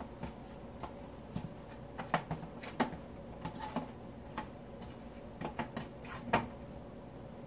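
Irregular light taps and clicks of slices of bread being moved and pressed on a metal baking sheet, the loudest knock about six seconds in.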